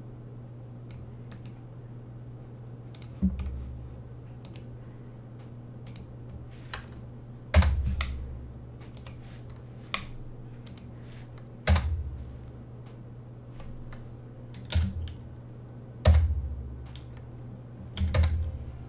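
Sparse typing on a computer keyboard: scattered light key clicks and about six heavier keystrokes with a low thump, at irregular intervals, over a steady low hum.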